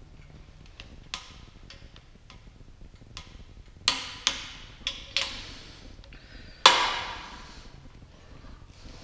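Click-type torque wrench on the main bearing cap bolts of a Ford 351 Windsor block: light ratchet ticks in the first three seconds, then about five sharp metallic clicks with a short ring between about four and seven seconds in, the last the loudest, as the wrench breaks over at its 100 ft-lb setting.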